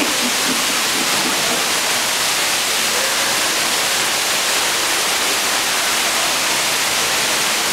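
Steady, loud rush of falling water from a waterfall on a dark-ride boat course.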